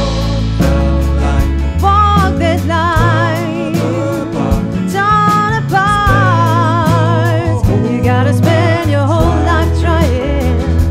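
Soul band playing a slow song live: a woman's voice sings long held notes with wide vibrato over acoustic and electric guitar, organ, bass and drums.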